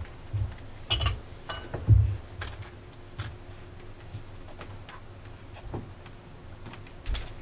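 Scattered low thumps and small clicks of a person moving about and handling things, mostly in the first two seconds, with another thump near the end, over quiet room noise.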